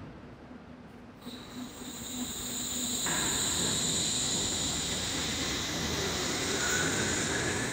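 Wuppertal Schwebebahn suspension railway car moving through the station under its overhead steel rail. A steady high electric whine starts about a second in, and a couple of seconds later the noise of the running gear builds and holds.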